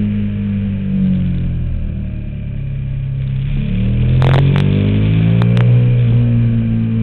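KTM 990 Super Duke's V-twin engine heard from on the bike: the engine note drops as the throttle is eased for a bend, then rises again about four seconds in as the bike drives out of it. A few sharp clicks come as it picks up.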